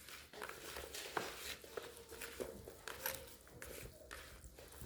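Light kitchen clatter from handling food and utensils: scattered small knocks and clicks at uneven intervals.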